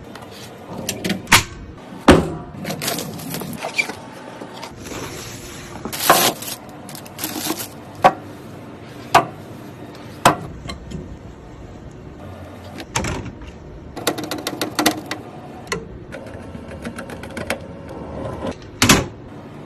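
Irregular clicks, taps and knocks, about a dozen sharp ones, with short scraping and rustling sounds between them: computer parts being handled and fitted during a PC build.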